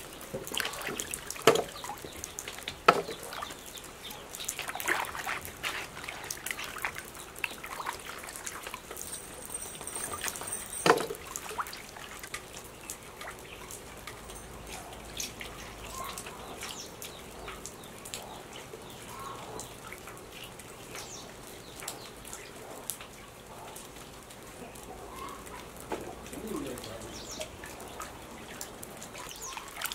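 Water splashing and trickling in a steel basin as hands scrub and rinse fresh bamboo shoots, with a hose running into the water. There are a few sharp knocks, two in the first few seconds and one about eleven seconds in.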